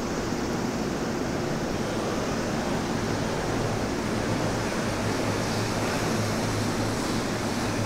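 Steady idling hum of electric commuter trains standing at a platform, their auxiliary equipment and air conditioning droning at a low pitch under an even rushing hiss.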